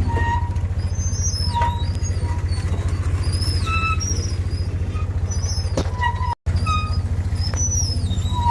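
Tractor diesel engine running steadily under load, a fast low pulsing rumble, with high chirps and whistles over it. The sound cuts out for an instant a little after six seconds.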